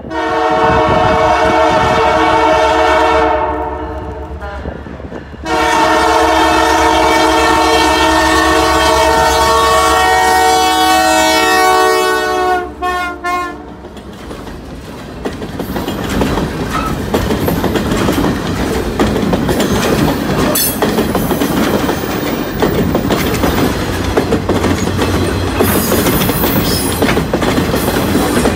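Locomotive air horn sounding two long blasts and then a couple of short ones, followed by the train passing close by with a steady rumble and the clatter of wheels over the rail joints.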